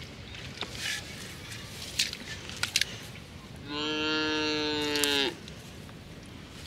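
A cow moos once, a single steady call about a second and a half long that drops in pitch as it ends. Faint scattered clicks and rustles from a hand working in wet mud and grass come before it.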